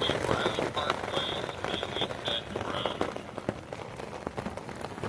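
Rain drumming on a tent's fly, a dense, irregular patter of drops. A run of short, high chirps sounds over it in the first few seconds.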